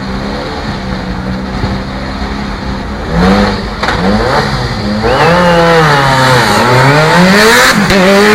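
Car engine running at a steady pitch, then revved up and down repeatedly from about three seconds in, getting louder.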